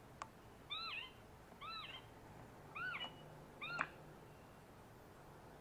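Recorded animal call playing from a small bird-call speaker: four short rising-then-falling calls about a second apart, with two sharp clicks, then the playback stops after the fourth call.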